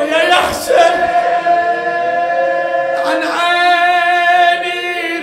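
A man chanting an Arabic Shia mourning elegy without instruments, holding long drawn-out notes that bend slowly in pitch. The line breaks briefly about half a second in and again about three seconds in.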